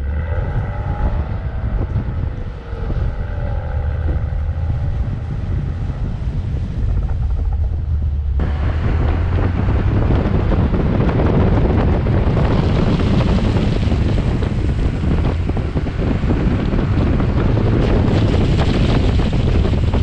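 BMW car driven on a wet track: engine running with tyres squealing in wavering tones for the first several seconds. About eight seconds in the sound changes abruptly to heavy wind noise on the microphone mixed with the hiss of wet tyres and spray.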